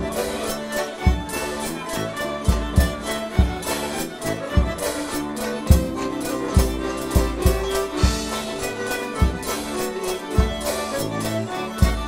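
English country dance band playing a traditional dance tune: fiddle and melodeon lead over banjo and bass saxophone, with a drum kit keeping a steady beat.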